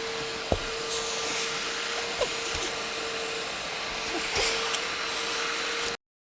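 Bissell portable upholstery spot cleaner's suction motor running with a steady whine, with a few light knocks from the tool against the seat. It cuts off abruptly near the end.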